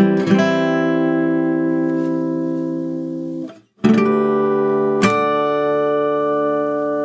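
Strinberg Diamond DM2S OM-body steel-string acoustic guitar with Elixir .012 strings: a chord rings out and fades, cuts off abruptly about three and a half seconds in, then a new chord is struck and rings on, with a second strum about a second later.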